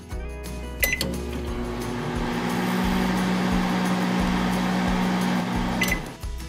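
Small electric oven running, a steady hum and fan noise set off by a click about a second in and ended by another click near the end.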